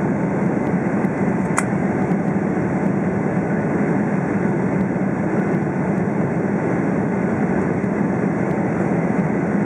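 Steady distant jet rumble of a Boeing 777-300ER's GE90 engines as the airliner climbs away after takeoff, with a single faint click about one and a half seconds in.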